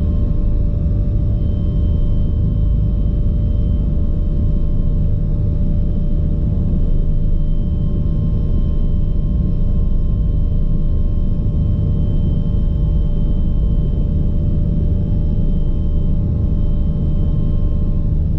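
Bell 429 twin-turbine helicopter running steadily: a constant low rumble of rotor and engine noise with a few steady whining tones above it.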